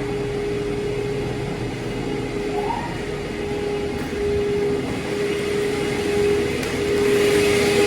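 Steady machinery drone with a constant mid-pitched hum, and a hissing rush that grows louder near the end.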